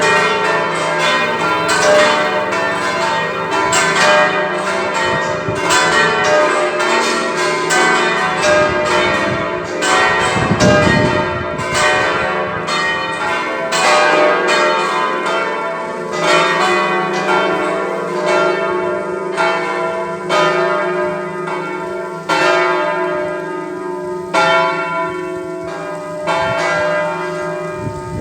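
A set of six church bells ringing together, strike after strike, several a second, their tones overlapping and hanging in the air.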